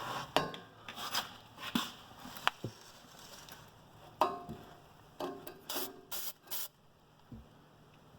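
Short hisses of a spray-paint can, sprayed in quick bursts to mark bolt holes through a steel wear edge, among scrapes and a few knocks of handling.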